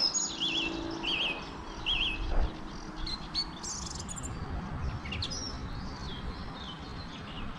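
Wild birds singing and chirping: short warbling notes repeated about every half second in the first two seconds, then scattered higher chirps. A faint low hum sounds under them for the first few seconds.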